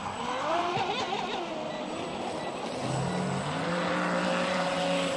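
Radio-controlled speedboat's electric motor whining as it runs across the water, its pitch swinging up and down early on, then holding steadier in the second half.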